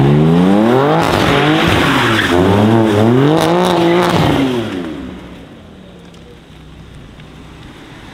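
BMW M3 G80's twin-turbo straight-six through an R44 performance exhaust, revving hard while the car drifts. The pitch rises, then wavers up and down over tyre squeal. Nearly five seconds in it drops to a quieter, steady low running as the driver lets off.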